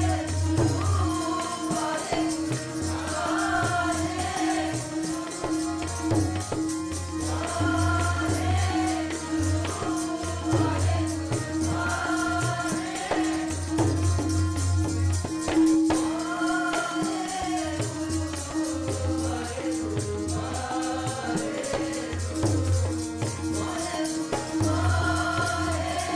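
Sikh kirtan: a singer leads a devotional chant over a harmonium's held drone and tabla, and many voices join in the refrains. A fast, even jingling from hand percussion runs through it.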